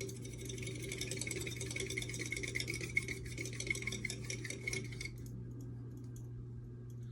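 Ceiling fan running with a rapid ticking rattle that has a faint ringing edge; the rattling stops about five seconds in, leaving a steady low hum.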